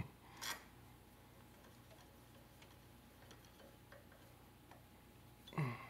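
Steel hex key (Allen wrench) working in socket-head screws as they are snugged down: two sharp metal clicks near the start, then faint scattered ticks over low room hum. A louder brief sound comes just before the end.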